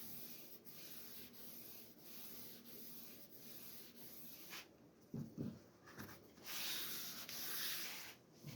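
Medium-grit Sandflex abrasive block scrubbed back and forth over a cast-iron table saw top: faint, even rubbing strokes, about three every two seconds, growing louder near the end. A brief low sound comes about five seconds in.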